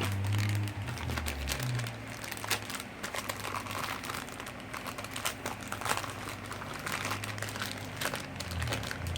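Plastic packaging crinkling and rustling in irregular bursts as toy parts are handled and unwrapped.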